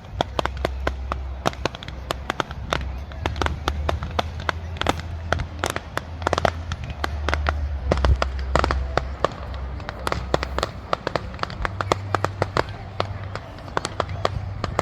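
Fireworks going off in quick succession: a dense run of sharp pops and crackles over a low rumble.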